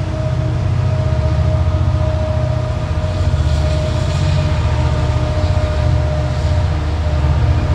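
Freight train's diesel-electric locomotives passing at close range, a deep, steady engine rumble with a steady higher tone over it.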